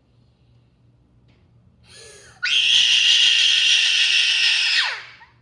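A young boy crying: one long, high wail that starts about two and a half seconds in, lasts about two and a half seconds, and drops in pitch as it dies away.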